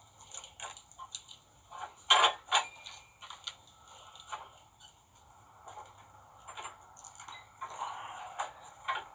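Steel winch cable and metal fittings being handled: a scattering of short clicks, knocks and scrapes, the two loudest about two seconds in.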